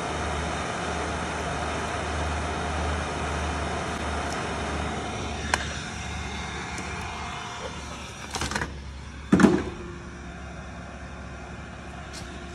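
Hot air rework station blowing steadily on a processor chip to melt its solder and desolder it, the air noise dropping away after about five and a half seconds as the nozzle is lifted off. A sharp click comes at that point, then two knocks later on.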